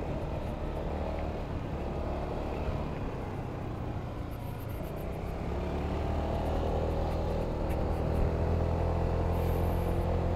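Honda Forza 250 (MF17) scooter's single-cylinder engine running under way, heard from the rider's position with road noise. It eases off a little a few seconds in, then picks up and climbs in pitch as the scooter accelerates.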